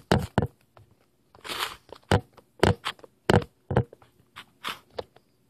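Kitchen knife chopping celery into tiny pieces on a stone countertop: about a dozen sharp, uneven chops, with a short scraping sound about a second and a half in.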